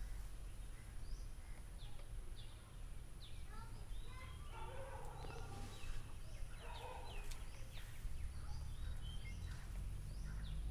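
Birds calling: short, high, falling chirps repeated again and again, with two spells of lower, rougher chatter about four and seven seconds in, over a low rumble of wind on the microphone.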